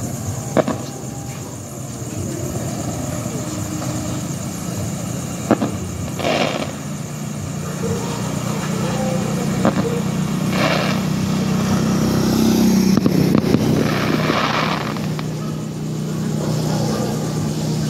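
Firework bangs, three sharp reports several seconds apart, over the steady low rumble of a vehicle engine that grows louder past the middle and then eases.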